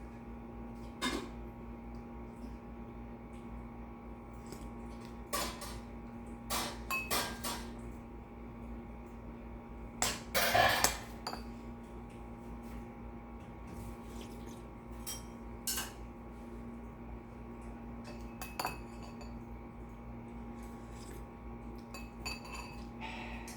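Cutlery and dishes clinking now and then during a meal, with the loudest burst of clinks about ten seconds in. A steady low hum runs underneath.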